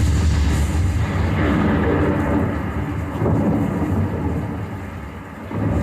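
Thunderstorm sound effect played through a Sony HT-S20R soundbar: heavy deep thunder over a dense rushing noise. It slowly eases off toward about five seconds in, then surges back up near the end.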